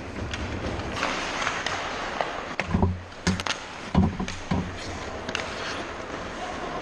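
Ice hockey play close to the goal: skates scraping the ice, with sharp stick clacks and several dull thumps, the heaviest about three and four seconds in.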